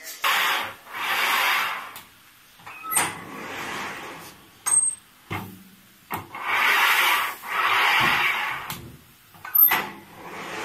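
Flatbread-making machine working: two pairs of loud hisses about a second each, a few seconds apart, with a few sharp clicks between them.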